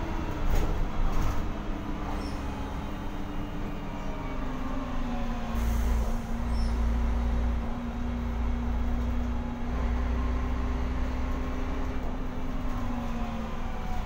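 Mercedes-Benz O405 city bus driving, heard from inside the passenger cabin: a steady diesel engine drone with deep rumble, the engine note stepping down about five seconds in. A few short rattles or knocks sound near the start.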